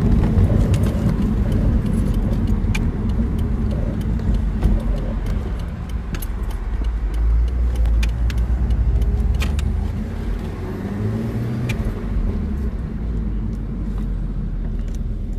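BMW Z4 2.5i roadster driving with the top down: a steady low rumble of its 2.5-litre straight-six engine and road noise, heard from the open cabin, with scattered light clicks.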